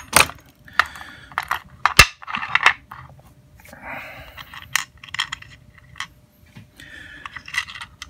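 Small metal lock parts and tools clicking and clinking against a wooden pinning tray as a padlock is taken apart, with a few short scrapes.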